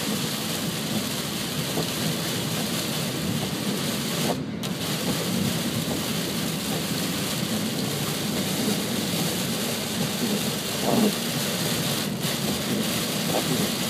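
Heavy wind-driven rain pelting the windows and body of a moving car, mixed with wind and tyre noise on the wet highway: a steady, dense rush of noise. The sound briefly drops out about four and a half seconds in.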